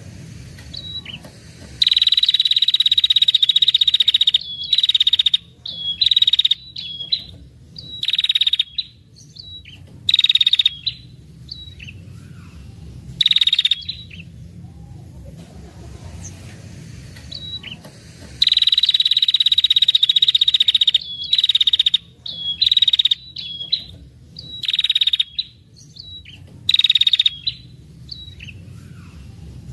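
Female prenjak kepala merah giving its rapid, buzzy 'ngetir' trill over and over, the excited female call used to lure males. Two long trills of about two and a half seconds, one about two seconds in and one past the midpoint, with many short bursts and chirps in between. A faint steady low hum runs underneath.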